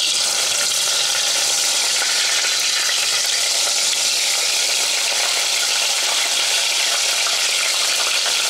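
Flour-coated okra slices frying in hot oil in a saucepan: a steady, even sizzle.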